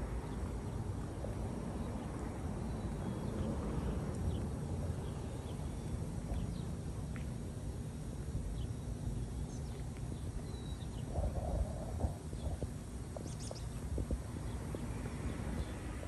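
Footsteps of someone walking a paved back alley, over a steady low outdoor rumble, with birds chirping briefly here and there.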